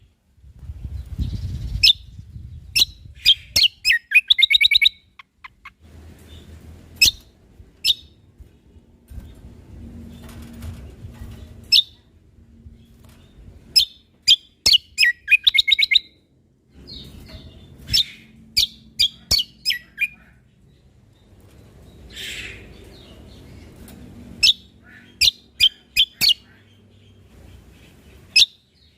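Cucak kombo (kecial kombok) songbird singing: sharp, high chirps in quick runs, broken by short rapid trills and brief pauses, with a faint low hum underneath at times.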